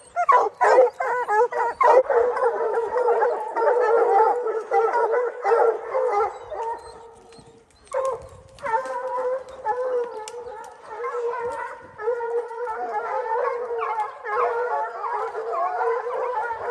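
A pack of hounds baying at a mountain lion in a tree, many long howling bays overlapping. The calling drops away briefly about halfway through, then the pack takes it up again.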